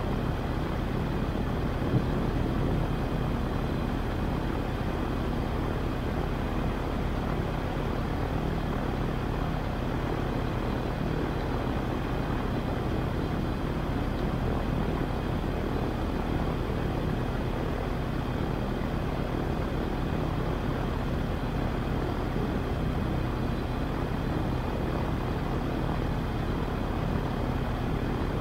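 AutoGyro MTOsport gyroplane's four-cylinder boxer engine and pusher propeller idling steadily while the aircraft stands still, heard from the open cockpit, with a single brief click about two seconds in.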